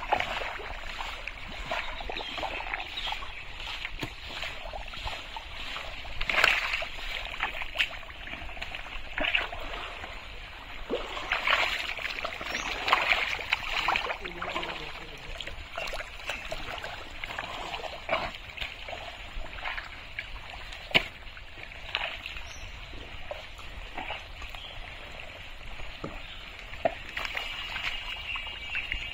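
Thick mud and muddy water sloshing and squelching as a person wades and gropes with their hands through a drained pond bed, with irregular sharp wet slaps and splashes.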